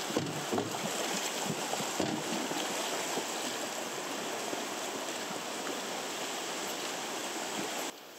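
River water rushing through a riffle around a drifting raft, a steady dense wash with a few short knocks in the first two seconds. The sound drops off abruptly near the end.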